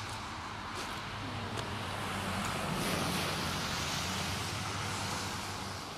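Road traffic: tyre hiss from passing cars, swelling about halfway through, over a steady low hum.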